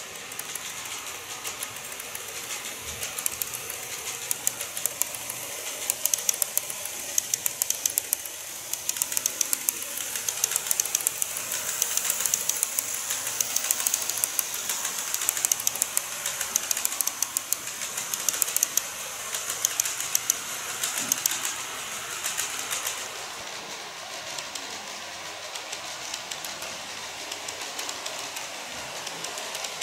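N-gauge model electric train running across a model truss bridge: a dense stream of rapid clicks from its wheels on the track joints, with a high rattle over it. It builds to its loudest about halfway through while the train is on the bridge, then drops to a quieter clicking run a little after twenty seconds.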